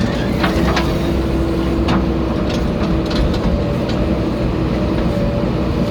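JCB backhoe loader's diesel engine running steadily under work, with a steady hum over the rumble. A few short knocks come in the first three seconds or so.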